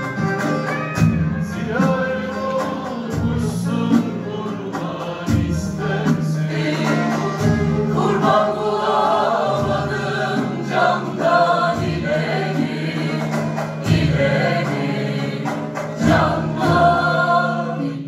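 Mixed choir singing a Turkish folk song in unison, accompanied by bağlama, acoustic guitar and cajon, with a steady beat.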